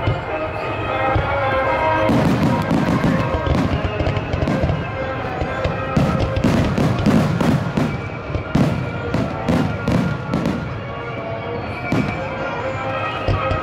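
Aerial fireworks shells bursting in quick succession, sharp cracks over low booms, thickest from about two seconds in until near the end.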